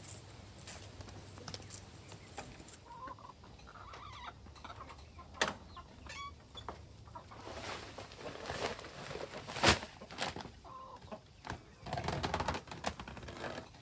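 Chickens clucking, with a couple of sharp knocks, the loudest about two-thirds of the way through, and a burst of rustling noise near the end.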